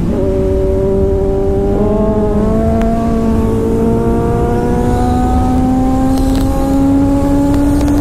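Kawasaki Z800's inline-four engine pulling hard as the motorcycle accelerates in gear, its pitch climbing slowly and steadily, with wind rushing over the microphone.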